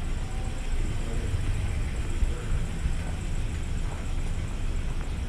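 Outdoor urban street ambience: a steady low rumble with no distinct events.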